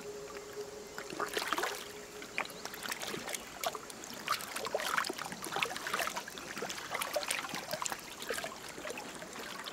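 Water splashing and sloshing in short, irregular bursts as a person wades through shallow river water.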